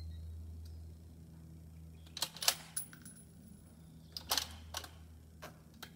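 A series of light metallic clicks and clinks: a quick cluster of three about two seconds in, another about four seconds in, and two softer ones near the end, over a low steady hum.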